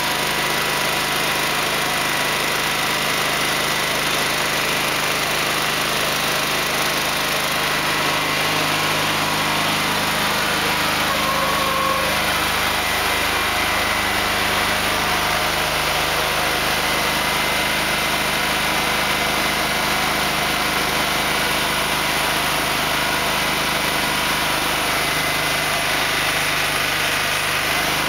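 Engine of a heavy-haulage multi-axle transporter running at an even pitch as it moves the load slowly.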